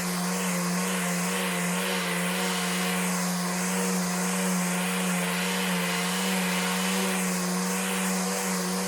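Electric sander running steadily: a constant motor hum with a broad abrasive hiss above it that swells and eases every couple of seconds.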